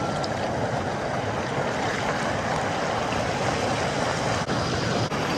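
Shallow creek water rushing over rock ledges, a steady, even wash close to the microphone at water level.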